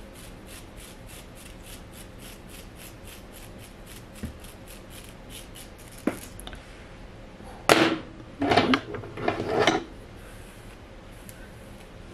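A comb teasing a section of wig hair in quick short strokes, a rhythmic rasping of about four strokes a second that stops after about five seconds. About eight seconds in come three louder short rushing bursts.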